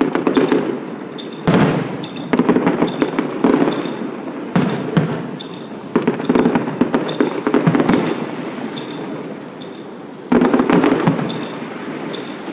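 Fireworks going off: a series of crackling bursts. About six times a burst of rapid crackles starts suddenly and then fades away.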